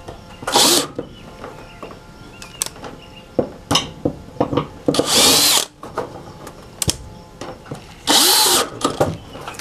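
Cordless drill driving screws through aluminum under-deck side cap trim. It runs in three bursts: a short one about half a second in, then longer runs near the middle and near the end, each with a brief rise and fall in motor pitch. Small clicks and taps of handling come between the bursts.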